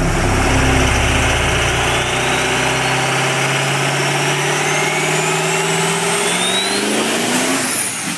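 Car engine accelerating, its pitch climbing steadily for several seconds under a dense rushing noise, then dropping away near the end.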